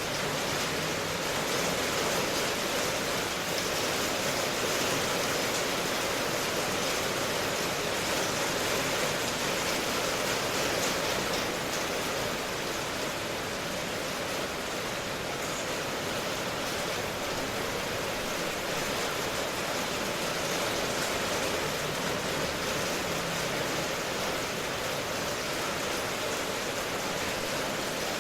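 Steady rain ambience: an even, unbroken hiss of falling rain.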